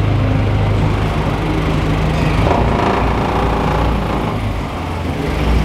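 Nissan N15 Pulsar's SR20VE four-cylinder engine running steadily at low revs.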